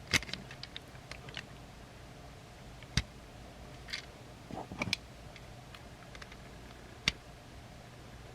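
Plastic transforming-robot toy parts being handled and pegged together: a few separate sharp clicks, with a short burst of rustling handling about halfway through.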